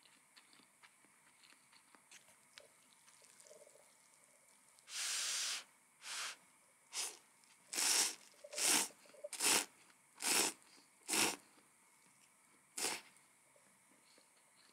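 One longer hiss about five seconds in, then about eight short hisses, roughly one a second, with a gap before the last.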